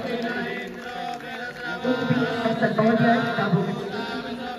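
Devotional chanting by several voices together, the pitch rising and falling. It grows louder about two seconds in.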